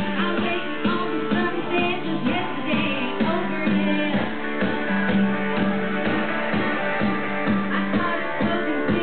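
A woman singing into a handheld microphone over guitar-led backing music with a steady beat.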